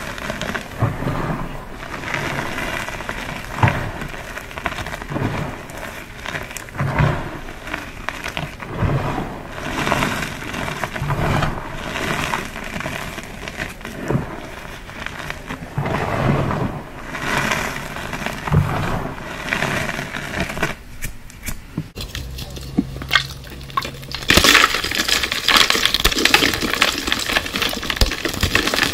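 Pasted gym chalk blocks crumbling and crunching as they are crushed, one crunch every second or two. About three-quarters of the way through, the crunching briefly falls quieter, then turns into a dense, rapid crackle.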